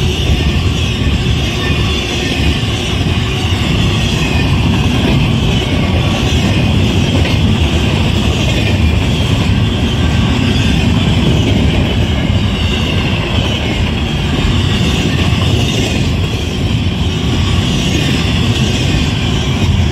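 Double-stack intermodal freight cars of a BNSF train rolling past close by, a steady, loud rush of wheels on rail.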